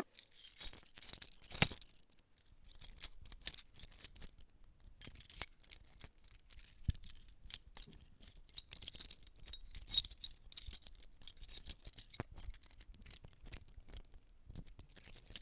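Small hard metal objects clinking and jingling in irregular clusters of light taps, with a bright ringing to each touch.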